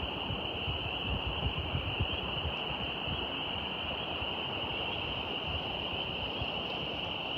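Steady outdoor nature ambience: an even rushing noise with uneven low rumble, under a continuous high-pitched drone held at one pitch.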